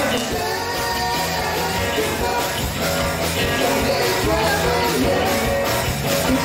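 Rock band playing live: a loud, continuous instrumental passage with drums keeping a steady beat under sustained pitched instruments.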